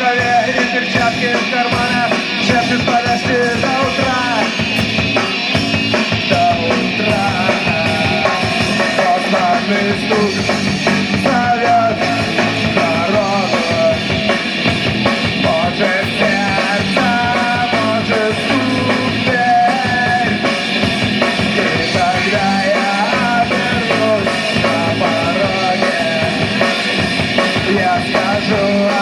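Live rock band playing a loud, driving punk-rock number with a drum kit and a melody line on top.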